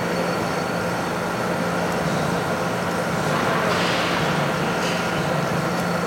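Large OMEGA spiral dough mixer running with a big batch of dough in the bowl, giving a steady motor hum and drone as it kneads.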